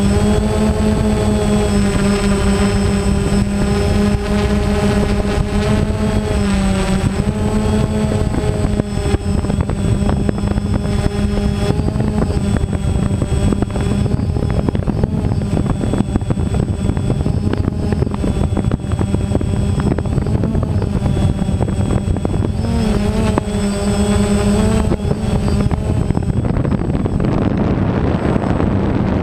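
Small multirotor drone's motors and propellers whining steadily as it flies, the pitch wobbling briefly twice as it manoeuvres, over a constant rush of air noise on the on-board microphone.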